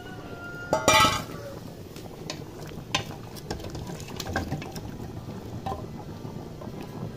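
Cassava pieces being put into an open aluminium pressure-cooker pot of cooking meat. A loud cluster of metal clanks and knocks against the pot comes about a second in, followed by a few lighter clicks.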